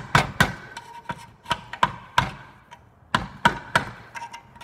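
Hammer tapping a tool, metal on metal, to drive the old rubber bushing's outer ring out of a Subaru Outback front control arm. About ten sharp taps come in uneven groups of two or three, each with a brief metallic ring.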